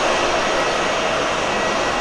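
Jet engines of a taxiing Airbus A320 running at low thrust: a steady rush with a thin, steady high whine over it.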